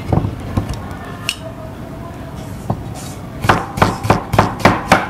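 A few light taps and clinks, then from about three and a half seconds in a cleaver slicing cucumber on a wooden chopping board in a steady run of strikes, about three a second.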